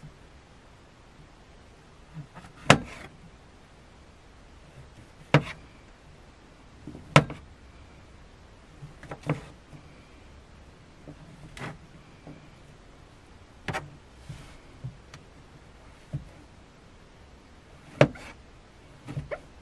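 Kitchen knife slicing through button mushrooms and knocking down onto a cutting board: single sharp taps, roughly one every one to two seconds, with quieter handling sounds between.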